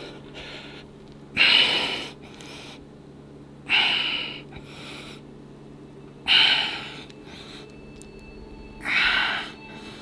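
A man's forceful, loud exhalations under effort during a set of machine shoulder presses: four hard breaths out about two and a half seconds apart, with quieter breaths in between them.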